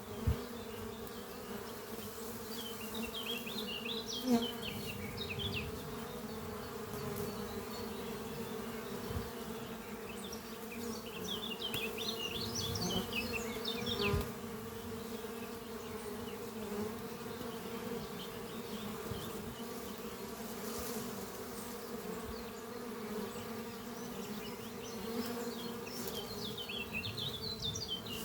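Many honeybees flying in and out at the entrance of a busy hive: a steady, low-pitched buzz of wings, with a few short knocks.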